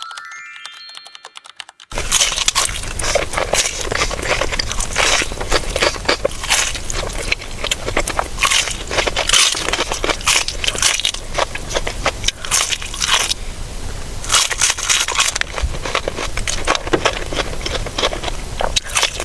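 Close-up crunching and chewing of crispy fried hot chicken: repeated crackly bites into the breading and chewing. It starts about two seconds in and continues without a break.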